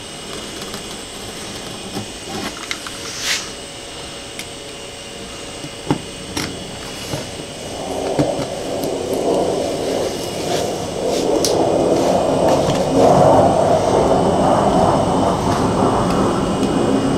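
Razor knife cutting excess PEI sheet along the edge of a steel build plate: a few faint clicks, then from about eight seconds in a dense, continuous scraping rasp that grows louder.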